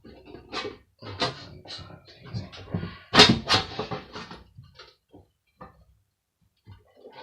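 A metal hand dryer being taken apart by hand: a run of knocks, clanks and scrapes from its casing and parts being handled, the loudest about three seconds in, dying down to a few small clicks near the end.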